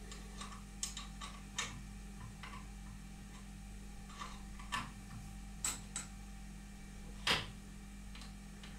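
Scattered light metallic clicks and taps, one louder near the end, as the carriage stop on a manual lathe is positioned and clamped, over a faint steady hum.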